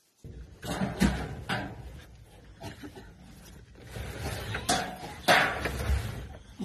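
Freshly picked chili peppers being handled and washed by hand: irregular rustling and splashing with several sharp knocks, the loudest about a second in and again about five seconds in.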